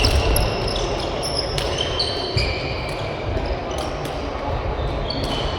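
Badminton rally sounds in a sports hall: shoes squeaking repeatedly on the court floor, with a few sharp clicks of rackets striking the shuttlecock over a low hall rumble.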